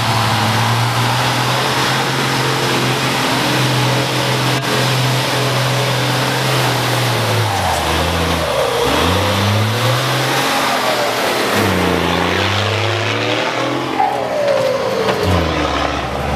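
Off-road rally truck's engine running at a steady pitch, then revving hard, falling and climbing again about halfway through and once more a few seconds later, as the truck pulls through deep mud.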